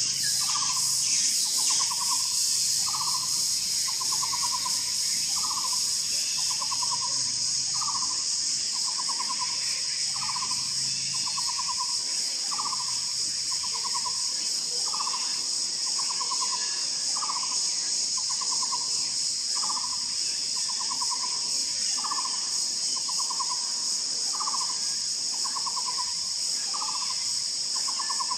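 Taiwan barbet calling in a steady, unbroken series: each call is a short hooked note followed by a longer trilled note, repeated about once every second and a quarter. A steady high insect buzz runs underneath.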